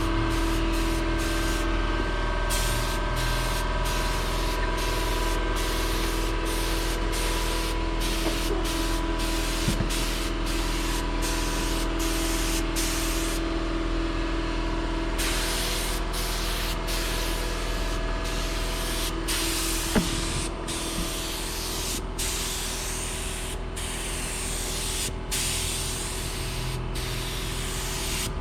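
Air-driven paint spray gun hissing as paint is sprayed in passes, the hiss cutting out for a moment dozens of times as the trigger is let off and pulled again, over a steady low hum.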